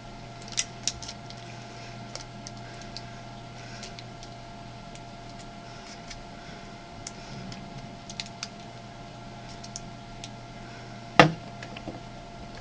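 Scattered light clicks and taps of small parts being handled by hand, over a steady low electrical hum, with one sharper click about eleven seconds in.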